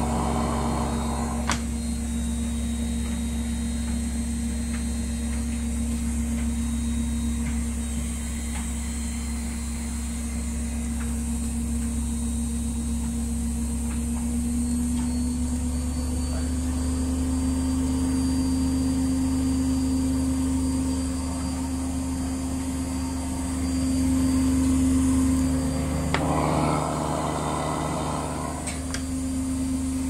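Privileg Dynamic 7660 front-loading washing machine spinning: a steady hum and whine from its brushed motor and turning drum, the pitch rising slightly about halfway through as the spin speeds up.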